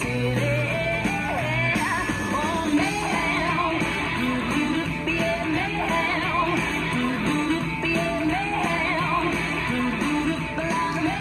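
Jive music: a rock-and-roll song with a singer over guitar.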